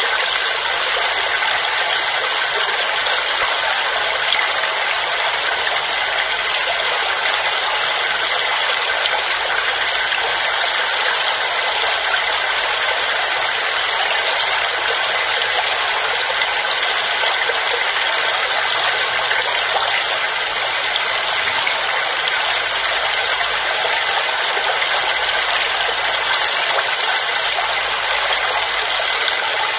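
Waterfall: a steady, unbroken rush of falling water that holds even throughout.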